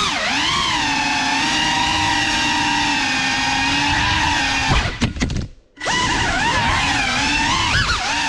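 FPV drone's electric motors and propellers whining, the pitch rising and falling with the throttle. The whine stutters and almost cuts out for under a second just past halfway, then picks up again.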